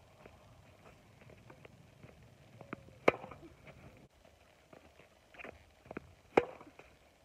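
Tennis racket striking the ball on forehand drives: two sharp, loud hits about three seconds apart, each with a brief ring from the strings. Fainter ticks and taps come between them.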